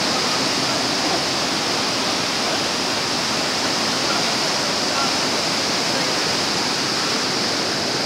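White water of the Düden River rushing over rocks at the falls: a loud, steady rush of water.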